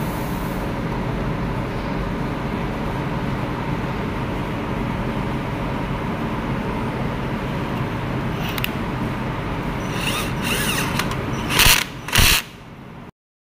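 A steady background hum, then a few clicks and scrapes before a cordless drill-driver spins in two short bursts about half a second apart, driving a screw into a circuit breaker terminal.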